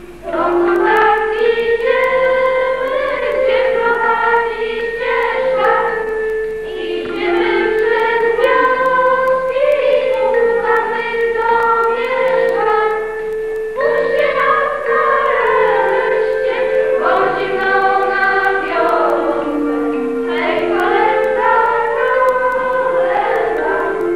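A group of voices singing a Christmas carol together over held instrumental chords.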